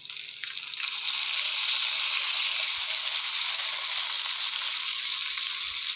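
Whole spices and fried onion slices sizzling in hot ghee in a kadai, a steady frying hiss that builds over the first second and then holds.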